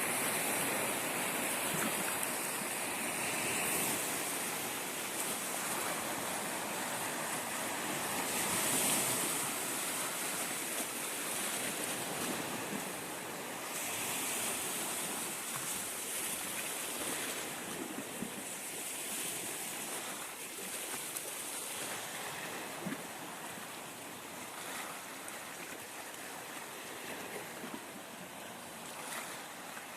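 Black Sea waves washing onto the shore: a steady wash of surf that swells and eases every few seconds as waves break, growing a little quieter near the end.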